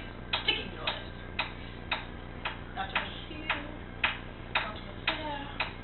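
Steady ticking, about two evenly spaced ticks a second, with faint voices in between.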